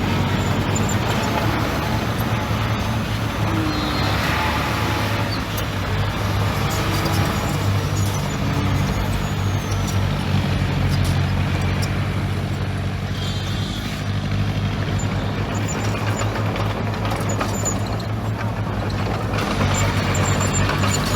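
Heavy diesel earthmoving machinery running steadily: a deep engine drone with small changes in load every few seconds.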